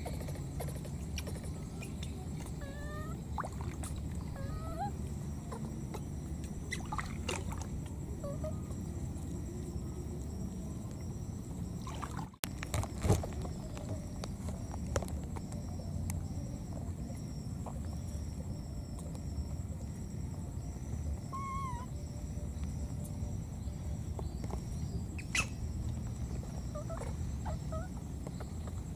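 Outdoor ambience: a steady low rumble with a thin, high pulsing drone above it, and a few faint, short squeaks and chirps scattered through. About twelve seconds in the sound drops out for an instant at a cut, followed by a sharp click, the loudest moment.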